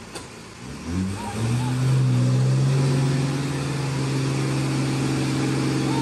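Heavy diesel engine revving up about a second in, then held steady at high revs under load while working the mud-stuck, log-laden truck.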